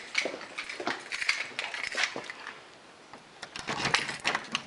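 Handling noise: scattered clicks, knocks and rustles of a covered camera being moved about, thinning out in the middle and busiest in the last second.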